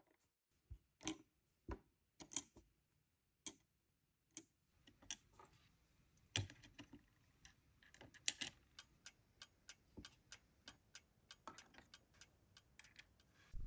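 Small plastic and wooden miniature pieces clicking and tapping as they are set down on a miniature table, irregularly at first. From about the middle on, a steady clock-like ticking, about three ticks a second.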